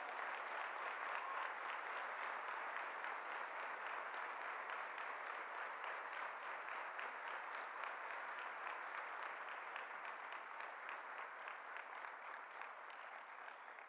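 A large seated audience applauding steadily, easing off slightly near the end.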